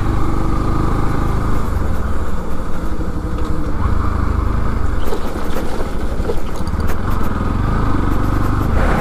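Bajaj NS 200's 199.5 cc single-cylinder engine running as the motorcycle is ridden over a rough, potholed dirt track, under a steady low rumble of wind and road noise with a few light knocks and rattles.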